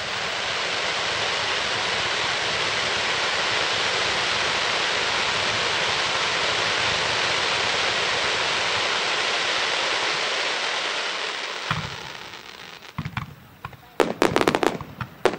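Ground-fired firework fountains spraying sparks, a steady loud hissing rush for about eleven seconds that fades out. Near the end a quick series of sharp bangs follows as small aerial shells burst.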